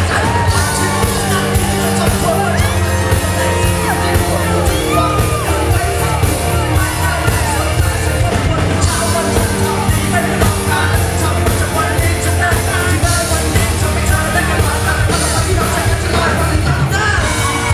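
Live band music with a male vocalist performing into a microphone over it, loud and steady throughout.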